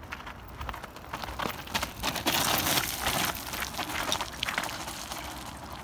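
Mountain bike tyres crunching and clattering over loose rock and gravel as the bike rolls down past, with many small crackles. Loudest about two to three seconds in, fading as it moves away.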